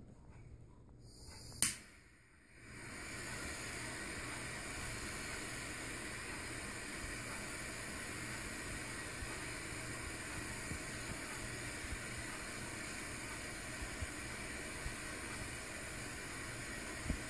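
A sharp click about one and a half seconds in, then the steady hiss of a butane jet torch lighter's blue flame held to a moxa stick to light it.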